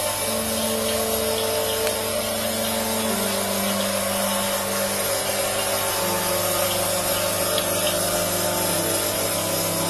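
Two-stage rotary vacuum pump running steadily, a constant mechanical hum and hiss. Quiet background music with slow, sustained low notes stepping downward plays under it.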